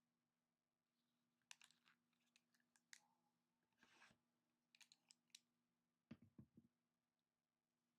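Faint handling of a trading-card box and its packs: scattered light clicks and taps, a short rustle about four seconds in, and a few soft knocks just after six seconds.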